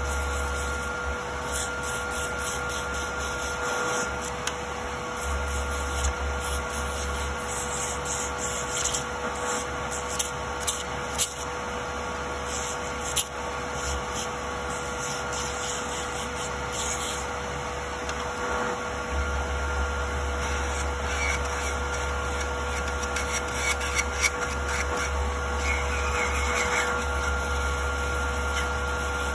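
Electric nail drill with a sanding bit filing down an artificial nail, a scratchy grinding over the steady hum of a nail dust collector's fan, with a few sharp clicks partway through.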